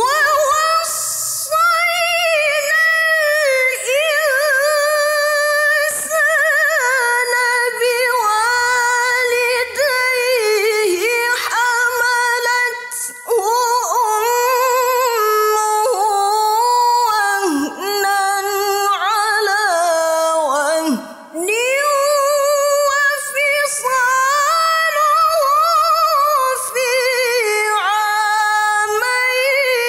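A woman reciting the Quran unaccompanied in melodic tilawah, in maqam Hijaz (Kard Kurd variant): one voice with long held notes, wavering with ornaments. It starts suddenly out of silence, with a few short breaks for breath.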